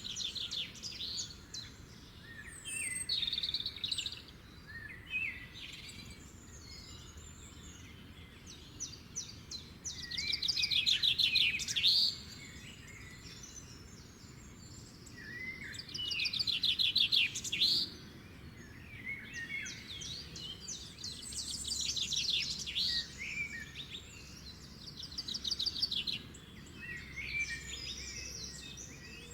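Several songbirds singing, with fast trilled song phrases of a second or two repeating every few seconds, the loudest two near the middle, over a faint steady background hiss.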